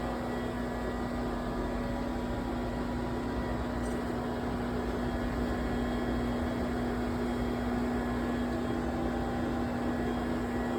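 Steady machine hum from a CNC lathe under power, a constant low-mid tone over an even hiss.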